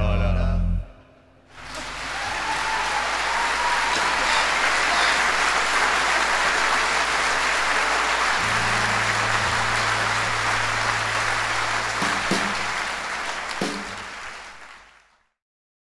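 Steady hiss of heavy rain, rising in about a second and a half in and fading out near the end.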